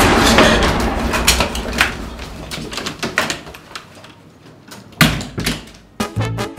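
Door and room handling sounds: a loud bang at the start that fades over about a second, scattered clicks and knocks, and a sharp bang of a door shutting about five seconds in. Upbeat swing-style music with a steady beat starts near the end.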